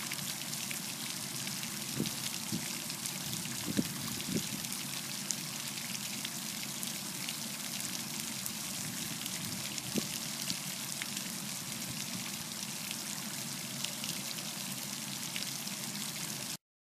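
Small spray fountain in a reflecting pool: a steady hiss and patter of water falling back onto the pool's surface, with a few brief sharper sounds standing out. The sound cuts off suddenly near the end.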